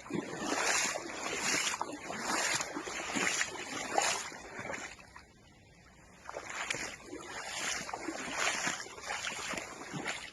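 Storm wind gusting against the microphone over rough, wind-driven water, in repeated surges with a short lull about five seconds in.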